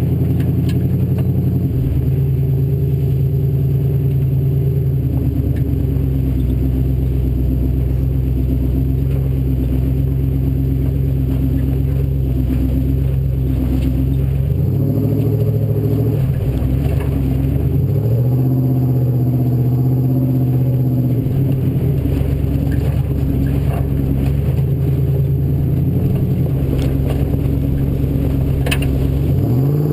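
Off-road race Ford Bronco's engine running hard and steadily, its pitch dropping and climbing again several times as the truck slows and speeds up, with a sharp rise in revs near the end. A few sharp knocks come in the second half, typical of the truck banging over rough ground.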